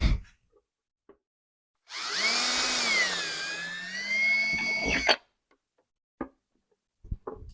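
Power drill running for about three seconds, drilling into a plastic bucket; its pitch sags partway through and then comes back up before it stops with a click. A few light clicks and knocks come before and after it.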